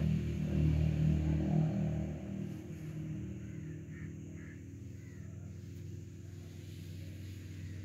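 A low, steady engine hum, louder for about the first two seconds and then settling to a quieter drone.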